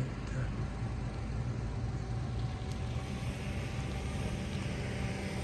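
A vehicle engine idling: a steady low hum that holds the same pitch throughout.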